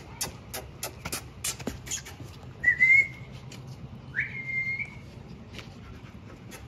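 A quick run of sharp mouth clicks, then two short high whistles, the second swooping up and held briefly: a person calling puppies' attention.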